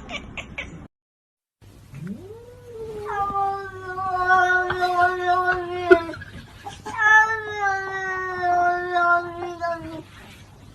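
A cat yowling: two long, drawn-out calls of about four seconds each, holding pitch and sagging slightly towards the end.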